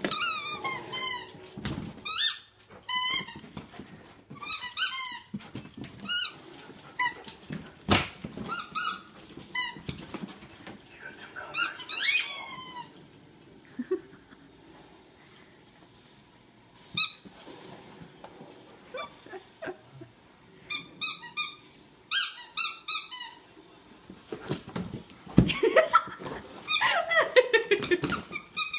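Husky chewing a squeaky rubber pumpkin toy, setting off quick runs of high squeaks again and again. The squeaking stops for a few seconds about halfway through, then starts up again.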